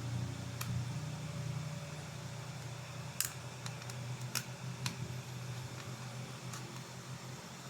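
Several separate sharp clicks and taps of tools and small parts being handled on an opened laptop, over a steady low hum.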